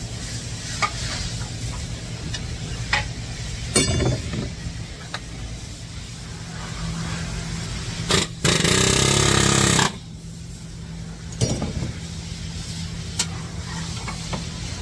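Shop work on a car's CV axle: a power tool runs hard for about two seconds near the middle, with scattered metal knocks and a short rattling burst earlier, over a steady low hum.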